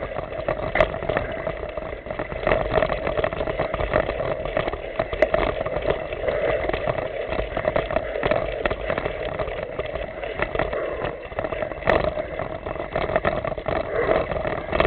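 Mountain bike riding over a leaf-covered dirt trail: steady rumbling noise of tyres and wind on the camera microphone, with frequent irregular knocks and rattles from the bike going over bumps, and a few sharper clicks.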